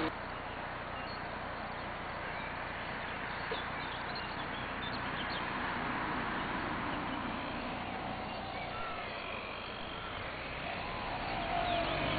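Steady outdoor noise with faint bird chirps. Near the end comes a faint whine falling in pitch: the small electric motor of an RC foam model plane coming back in.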